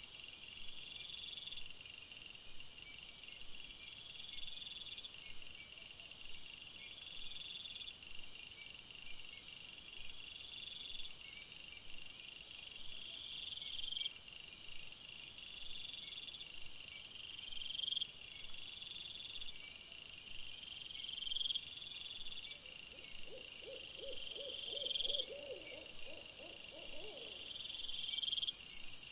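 Night insects, likely crickets, chirping in high, repeated phrases about every two seconds. Near the end a separate low, pulsing animal call lasts a few seconds.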